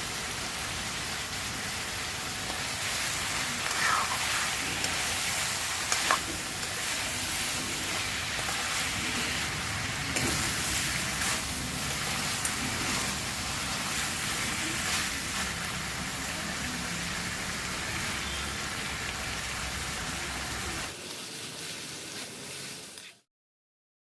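Food frying in hot oil in a cooking pan, a steady sizzle, with a few sharp clicks of a utensil against the pan. The sound drops away abruptly shortly before the end.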